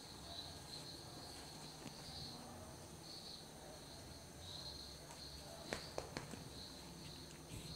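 Faint crickets chirping, a warbling trill repeating about once a second, over a low steady hum. Three quick light knocks come a little before six seconds in.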